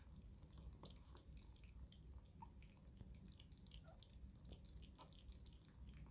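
Cavoodle puppy eating soft puppy mush from a bowl: faint, irregular wet lapping and smacking clicks.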